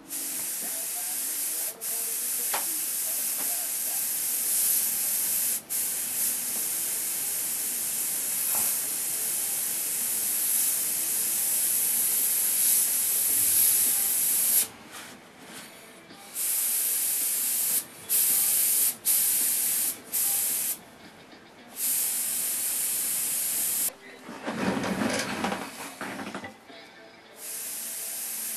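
Airbrush spraying paint: a steady, high hiss of air, switched on and off by the trigger, with several short pauses and a break of a few seconds near the end when a duller, lower noise takes its place.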